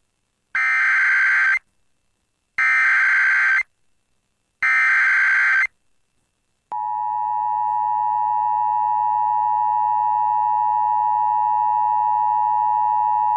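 Emergency Alert System signal for a flash flood warning. It opens with three one-second bursts of SAME digital header data, a second apart, which encode the alert. About a second after the last burst, the steady two-tone EAS attention signal starts and holds.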